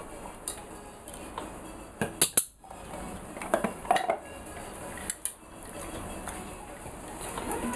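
Plastic bowls knocked and shifted about, with the ball clacking against them: a few sharp clacks about two seconds in, more around three and a half to four seconds, and one near five seconds.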